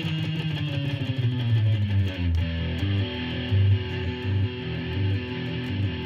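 Stratocaster-style electric guitar being played: a held note rings for about the first second, then a run of short picked low notes follows in a steady rhythm.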